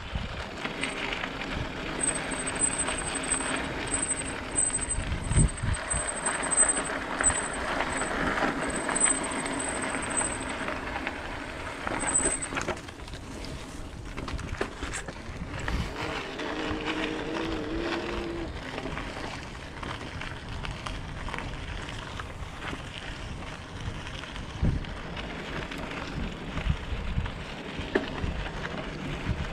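Bicycle rolling along a dirt and gravel trail: tyre crunch and rattle with uneven bumps, and wind noise. A faint, thin high whine pulses for roughly the first dozen seconds.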